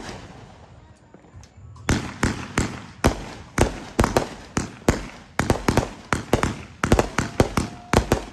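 Fireworks going off: a single sharp bang, then from about two seconds in a rapid run of cracks, about three or four a second.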